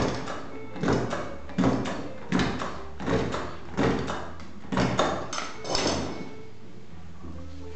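Long-reach stapler pressed again and again through paper cards: a sharp clack about every three-quarters of a second, some eight times, stopping about six seconds in.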